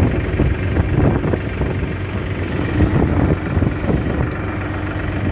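Diesel tractor engine running steadily while it drives the hydraulics that raise a tipping trolley's bed.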